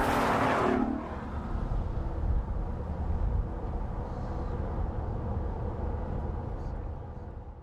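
Lexus LC 500's 5.0-litre V8 engine and exhaust, loud under acceleration for about the first second. It then runs on steadily at a lower level and fades out near the end.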